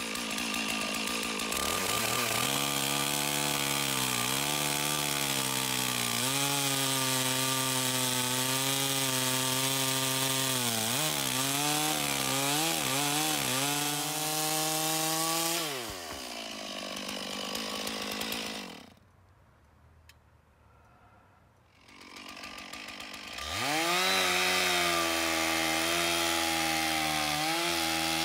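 Stihl chainsaw cutting through a dense madrone hardwood log. The engine revs up and runs steadily under load, its pitch dipping and recovering several times partway through, then drops off about 16 s in. After a few seconds of near silence the saw revs up again and keeps cutting steadily.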